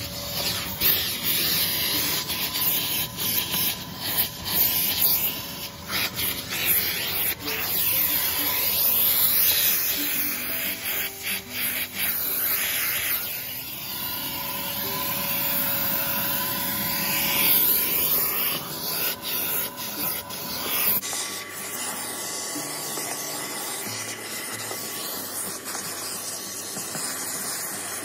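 Armor All handheld car vacuum running: a steady motor whine over rushing air, with the nozzle rubbing over carpet and plastic trim. About three quarters of the way through, the sound changes abruptly.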